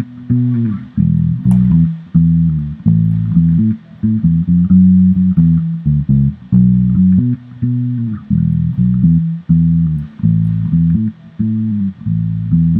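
Electric bass guitar playing a song's intro bass line: a continuous run of plucked notes, two to three a second, with a few short slides between notes.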